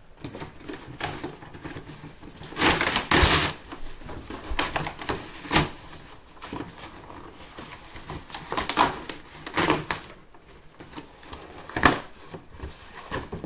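Cardboard shipping box being torn and pulled open by hand: irregular scraping, tearing and rustling of cardboard, with a longer loud tear about three seconds in and a couple of sharp knocks.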